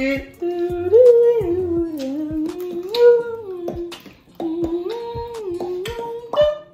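A man humming a slow tune in held notes that step up and down, with small sharp clicks scattered through it.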